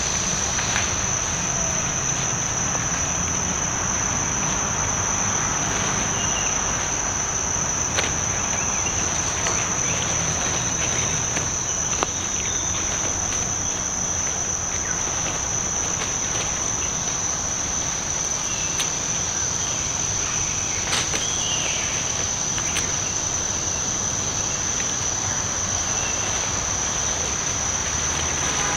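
Insect chorus: a continuous high-pitched drone holding one steady note, over an even background hiss, with a couple of brief clicks.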